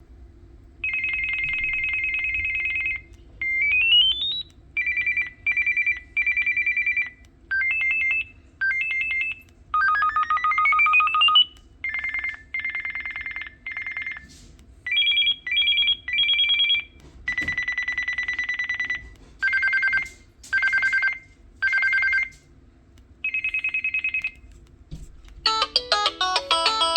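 Samsung SPH-A640 cell phone playing its default ringtones one after another: short electronic beep patterns of warbling two-note trills, rising pitch sweeps and repeated beep bursts, separated by brief pauses. Near the end a fuller, melodic ringtone tune begins.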